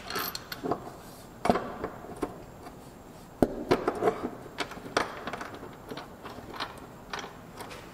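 Metal bolts clicking and knocking against the driveshaft's centre support bearing bracket as they are fitted and threaded in by hand: irregular light clicks and taps.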